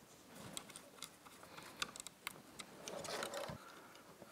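Faint scattered clicks and light handling noises of plastic and metal parts: a fuel level sender being fitted onto a fuel pump assembly. The handling thickens into a short patch of rustling about three seconds in.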